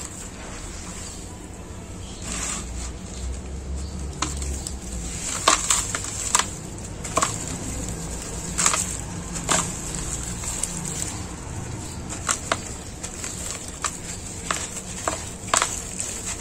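Gloved hands crumbling a dry, packed block of sandy soil, the grains and chunks falling into muddy water, with many irregular sharp crackles as it breaks apart.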